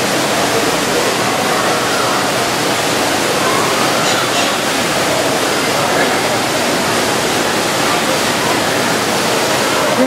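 Steady rush of a waterfall pouring into a pool, with indistinct voices faintly underneath.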